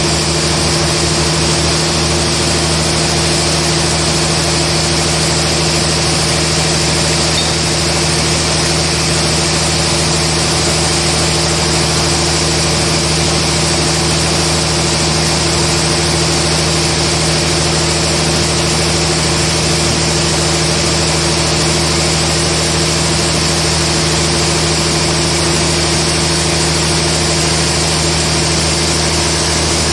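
Large band sawmill running steadily, its motor humming and its blade sawing a slab off a trembesi (rain tree) log.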